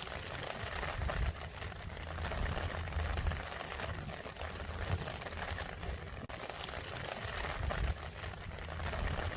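Rain falling steadily, a dense patter of drops, with a low rumble underneath.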